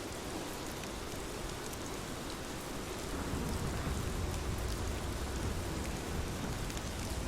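Steady rain falling, an even hiss with faint scattered drop ticks. From about three seconds in, a low rumble swells underneath and the sound grows a little louder.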